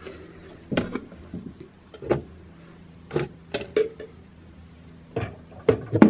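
Plastic and glass hair-product bottles being rummaged through and picked up, giving a series of short knocks and clacks, several close together around the middle, over a faint steady hum.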